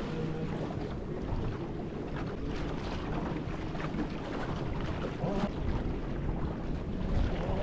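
Wind buffeting the microphone over the steady rush and splash of water along the hull of a small open sailing boat under way.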